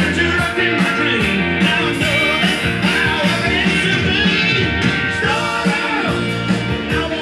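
A rock-and-roll song with a singer, playing from a vinyl record on the turntable.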